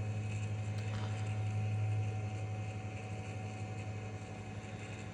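Steady low electrical hum with a faint constant whine above it, from running bench equipment, fading slightly toward the end.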